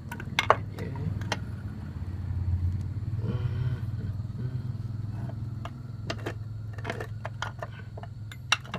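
Metal clicks and clunks of a Yamaha 135LC's aluminium crankcase being turned over and handled, a few near the start and a quick run of them toward the end, over a steady low hum.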